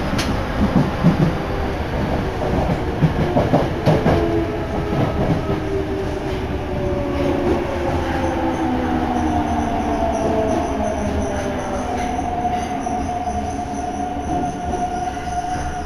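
Yokohama Municipal Subway Blue Line train heard from inside the car: a steady running rumble with clicks over the rail joints in the first few seconds. Then a whine that falls in pitch as the train slows for the next station, settling into one steady tone near the end.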